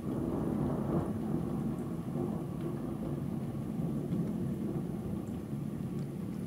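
Rolling thunder rumbling low and continuously, swelling about a second in.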